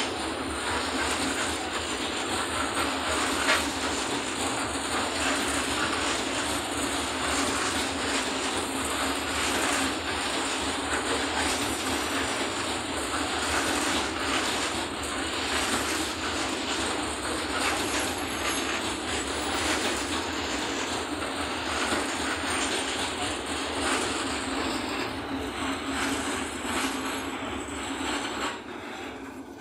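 Falns hopper wagons of a long freight train rolling past, their wheels giving a steady rolling noise full of clicks and metallic clatter. The sound falls away near the end as the last wagon goes by.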